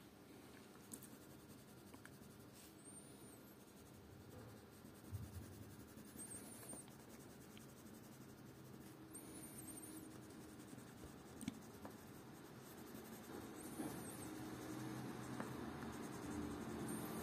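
Faint scratching of a coloured pencil rubbing on paper in short repeated strokes as the hedgehog's spiky outline is coloured in yellow.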